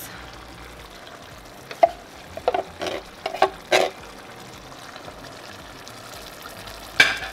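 A wooden spoon knocks and scrapes against a metal can as crushed tomatoes are emptied into a pot. The knocks come as a quick cluster about two to four seconds in, with one sharp knock near the end. A faint steady sizzle from the pot on the stove runs underneath.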